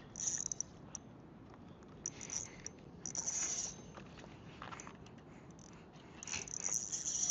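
Spinning-reel drag clicking in a high, rapid buzz in short bursts as a strong fish pulls line, with a longer run starting about six seconds in.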